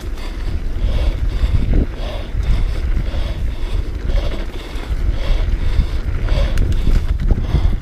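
Wind buffeting the camera microphone on a mountain bike descending a dirt trail, over the steady rumble and rattle of the bike rolling over rough ground, with a soft pulsing about twice a second.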